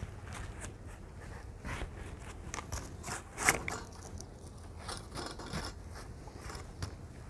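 Knife peeling the skin off an elephant foot yam: a series of irregular short scrapes and cuts, the loudest about three and a half seconds in.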